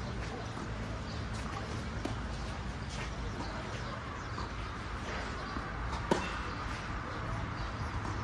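Steady outdoor background noise with faint bird chirps, and one sharp knock about six seconds in.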